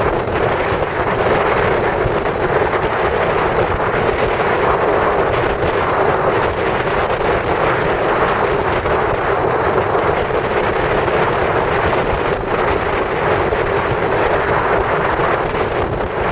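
Steady rush of wind and sea on the open deck of a moving ferry.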